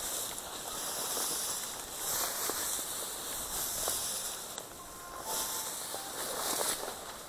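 Dry weeds and brush swishing and scraping against clothing and the camera as someone pushes through a thick stand of dead vegetation on foot. The rustling comes in uneven surges, roughly once a second or so.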